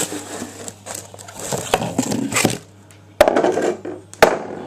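Rustling and scraping as an old boiler burner is handled and lifted out of its box, with two sharp knocks, about three and four seconds in.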